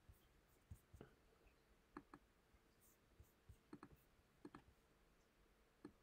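Faint computer mouse clicks, several in quick pairs like double-clicks, over near silence.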